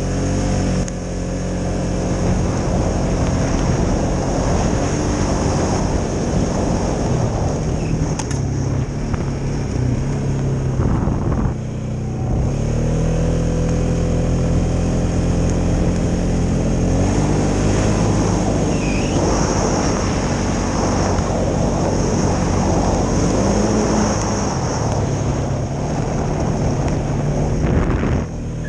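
2016 Polaris Sportsman 570 ATV's single-cylinder engine running under way, its pitch rising and falling with the throttle. It eases off briefly about eleven seconds in and again near the end.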